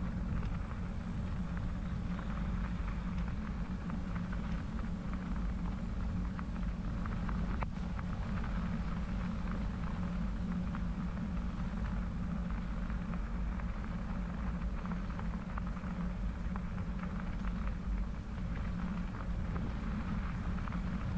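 Bicycle tyres rolling over a wet crushed-limestone trail: a steady low rumble with a fine crackle of wet grit.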